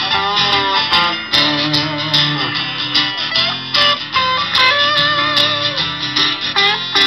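Live rock band playing an instrumental passage: guitar carrying the tune over a steady drum beat.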